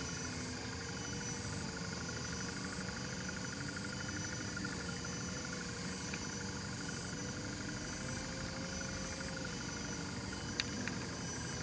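Steady background hum with a faint wavering tone running under it, and two small clicks near the end.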